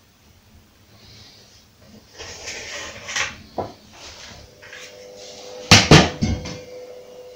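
Handling noise and light knocks as a spirit level is lifted off a painted wooden frame, then two sharp knocks close together about six seconds in as tools are put down and handled on the floor.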